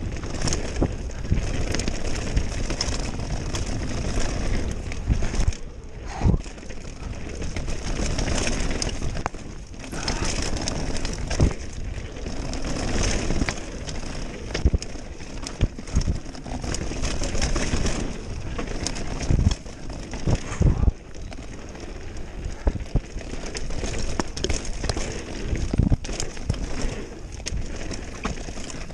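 Mountain bike descending a rocky dirt trail at speed: tyres rolling over dirt and stones and the bike rattling, with several sharp knocks over bumps. Wind buffets the microphone throughout.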